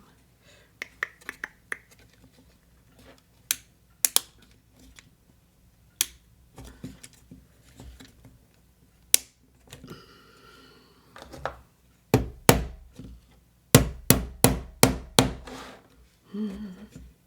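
Small wooden kit pieces clicking and knocking as they are pressed and tapped together on a work surface, with scattered single taps and then a quick run of about eight sharp knocks near the end.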